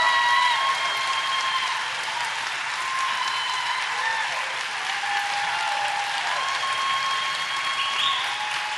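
A theatre audience applauding at the end of a song, steady, with a few long high-pitched tones held over the clapping.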